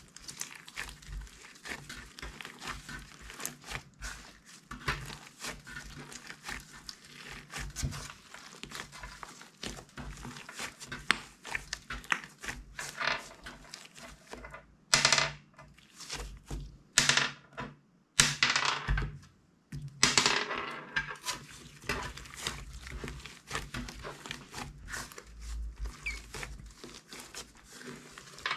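Hands squishing and folding slime: a steady run of small sticky crackles and pops, with a few louder squelches a little past the middle.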